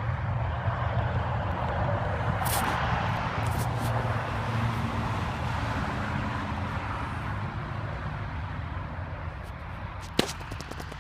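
Steady low rumble of distant jet aircraft and airport noise, slowly fading, with a sharp click about ten seconds in.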